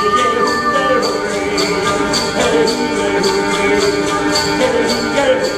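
Live music: a sustained, gliding melody over a steady jingling beat of bells, about two or three jingles a second.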